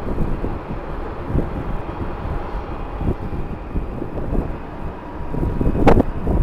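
Strong wind buffeting the microphone over the distant drone and faint whine of jet airliner engines. A single sharp knock comes near the end.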